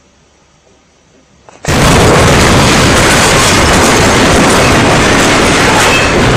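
Faint sound at first, then less than two seconds in a sudden, extremely loud, distorted blast of noise cuts in and carries on without a break.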